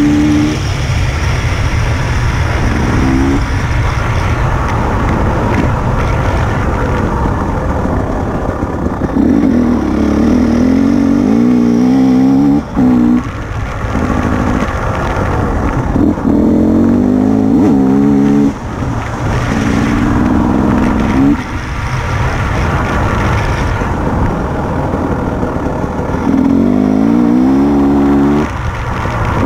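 Enduro motorcycle engine accelerating in repeated runs, its pitch climbing through each gear and falling away as the throttle is shut, heard from a helmet-mounted camera.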